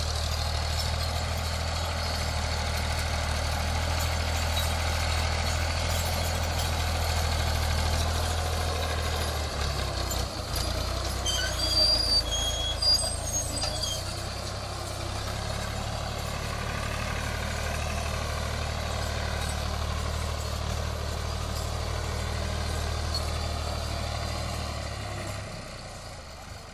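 Fiat 480 tractor's three-cylinder diesel engine running steadily under load, pulling a cultivator through the soil. A few short high squeaks come about halfway through, and the engine sound drops away near the end.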